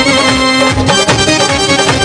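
Live band playing an instrumental passage of a Haryanvi song: a keyboard melody over a steady drum beat.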